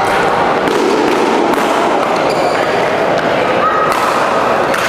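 Badminton rally: sharp racket hits on the shuttlecock about a second apart, and a shoe squeak on the court mat near the end. Underneath runs the steady chatter and noise of a busy sports hall.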